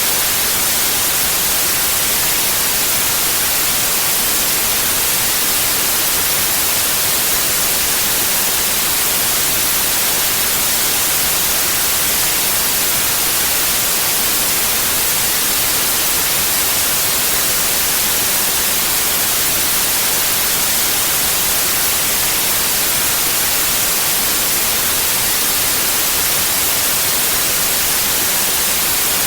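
Steady electronically generated white noise: an even, unchanging hiss.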